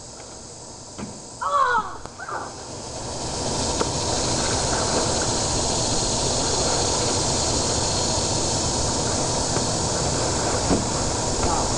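A short yell about a second and a half in, then a steady, even hiss that swells up over about a second and holds to the end.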